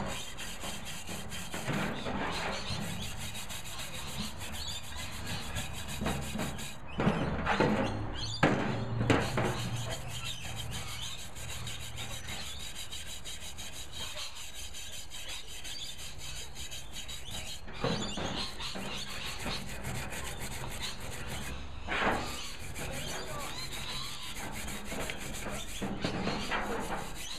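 Wire brush scrubbing a rusty cast iron barbecue burner in water, the bristles rasping steadily against the metal, with a few louder scrapes and knocks about seven to nine seconds in. The brush is clearing off rust loosened by a two-day soak in a molasses and water mix.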